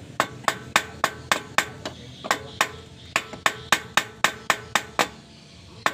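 Hammer blows on metal, struck in a steady run of about three to four a second, each with a short metallic ring. There is a brief break near two seconds, and the blows stop about a second before the end.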